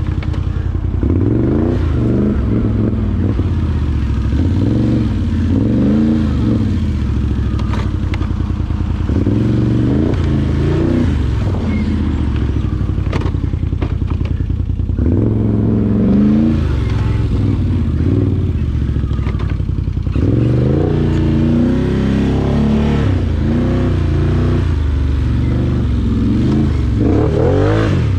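Can-Am Outlander 850 XT ATV's V-twin engine running on the trail, its revs rising and falling every few seconds as the throttle is opened and eased off. A few short knocks and rattles from the machine sound over it.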